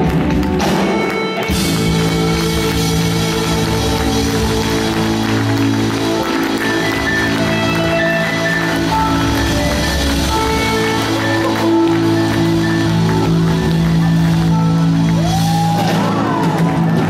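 Live rock band playing slow, sustained chords in a large hall, with electric guitar, keyboards and drums. A wavering high note comes in near the end.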